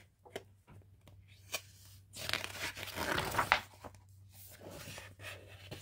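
A paper page of a picture book being turned by hand. It makes a swishing rustle for about a second and a half, with a few light taps of handling before it.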